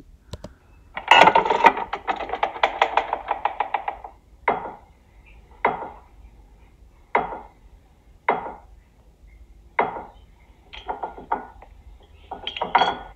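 Playback of an edited sound recording: a rapid rattling run of clicks for about three seconds, then a series of single sharp knocks at irregular spacing, the pasted copies of a short recorded clip.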